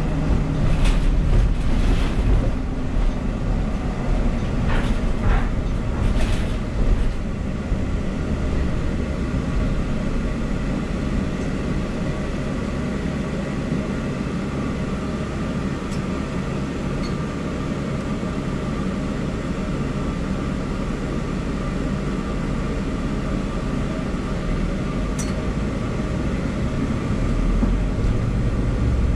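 Cabin noise inside a moving city transit bus: steady engine and road rumble, with a few knocks and rattles from the bus's fittings in the first seven seconds or so.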